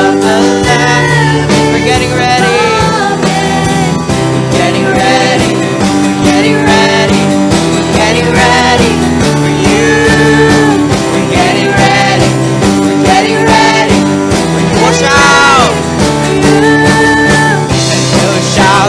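Worship band playing a song with a singing voice over guitar and steady backing instruments.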